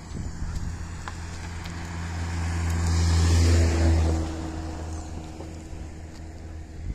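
A road vehicle passing close by: a low engine hum with tyre noise that swells to its loudest about three and a half seconds in, then fades.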